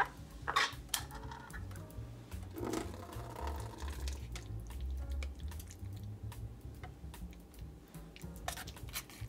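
Soft background music with a steady bass line under the scene, with a few sharp clicks and clinks of a metal spoon and tin cans being handled near the start and near the end, and a short rustling scrape a few seconds in.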